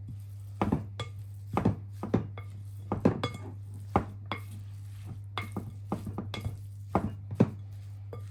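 Kitchen utensils clinking and tapping against a dish in short, irregular knocks, one or two a second, while ground meat is seasoned for hamburger patties, over a steady low hum.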